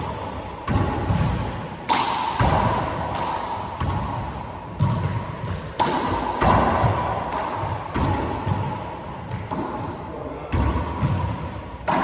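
Handball rally: a small rubber handball smacked by bare or gloved hands and cracking off the walls and floor in an irregular series of sharp hits, about one a second. Each hit rings out in the hard echo of the enclosed four-wall court.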